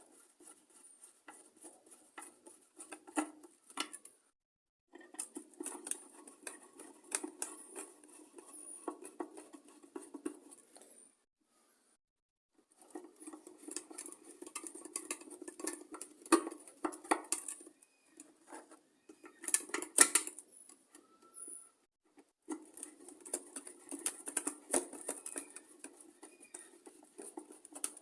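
Screwdriver tightening the screws that hold a Briggs & Stratton tank-mounted carburettor to its fuel tank: small clicks and scrapes of the screwdriver turning in the screw heads, in several spells with short pauses between them, with a few sharper clicks near the middle.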